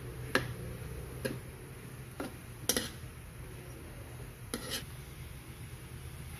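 Metal spoon knocking and scraping against a wok while stirring pork and potato curry, about five sharp clinks over the first five seconds, over a steady low hum.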